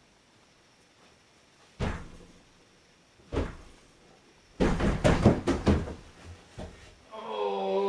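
Closet door: two single thumps, then a rattling clatter as the white closet door is moved open. Near the end, a person's voice holds a long low note that slides down at the end.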